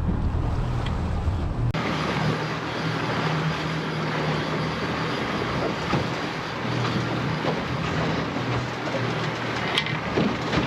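Boat engine running under a steady rush of wind and water on the open sea. The sound changes abruptly about two seconds in, and there is a brief click near the end.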